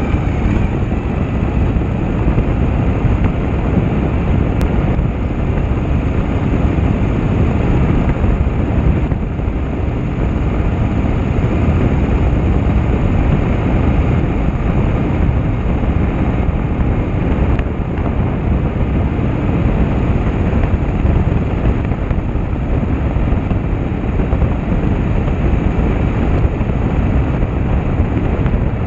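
Harley-Davidson Shovelhead V-twin motorcycle under way, its engine and exhaust running steadily as a deep rumble, mixed with wind noise on the handlebar-mounted microphone.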